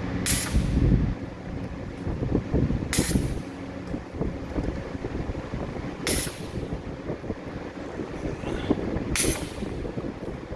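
Stud welding on boiler bed coil tubes: four short, sharp bursts about three seconds apart, each stud fired in a brief crackle, over a steady low industrial rumble.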